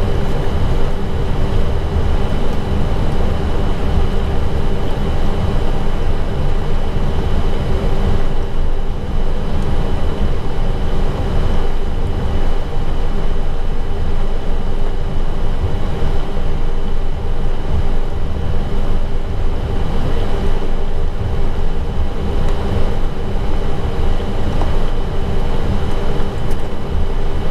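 Airbus A320 cockpit noise while taxiing after landing with the engines at idle: a steady low rumble with a constant multi-tone hum over it and no distinct events.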